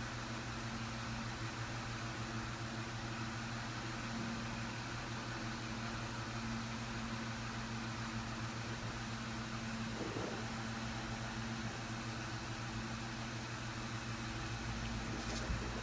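Steady mechanical hum of a running machine with an even hiss over it, unchanging throughout; a faint click near the end.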